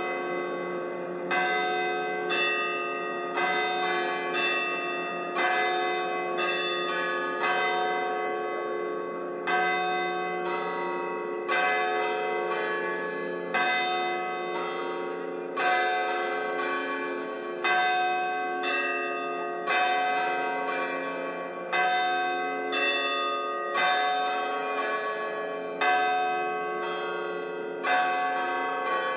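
Church bells pealing: several bells struck one after another, each ringing on under the next. A strike comes every half second to a second, with a louder stroke about every two seconds.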